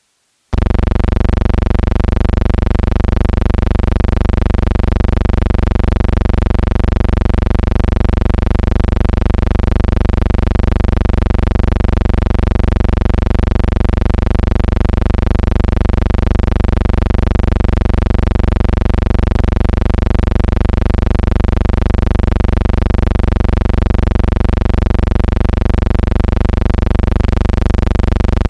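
A loud, steady hum with many even overtones that starts abruptly about half a second in and holds unchanged.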